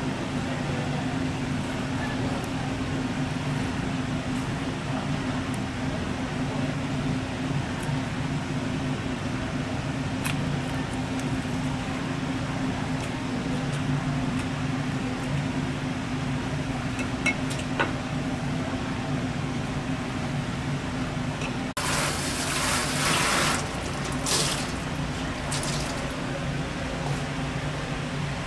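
A steady low machine hum, with a sudden rush of running water lasting a second or two about 22 seconds in and two shorter splashes of water after it.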